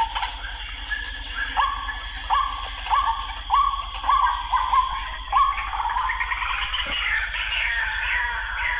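A series of short animal calls, each rising at the start, about two a second. About six seconds in, quicker, higher calls that fall in pitch take over.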